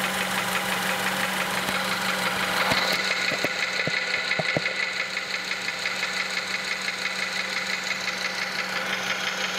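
The 2006 Honda Element's 2.4-liter four-cylinder engine running with a fast, regular internal knock. The knock is heard loudest in the block and gets a lot louder with cylinder 2 shorted out, which points to a bottom-end problem.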